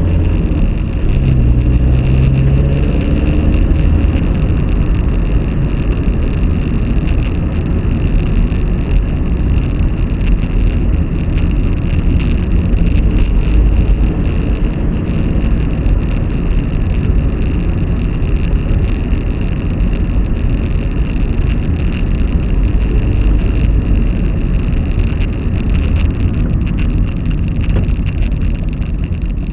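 Steady vehicle road noise while driving, engine and tyre rumble, picked up by a dashcam's built-in microphone.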